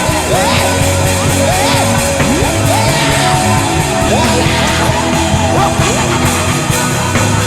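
Live gospel worship band music: a lead line of sliding, bending notes over steady bass and drums.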